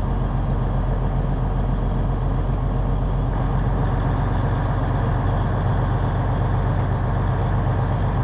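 Semi truck's diesel engine running steadily at low speed, a constant low drone with no change in pitch.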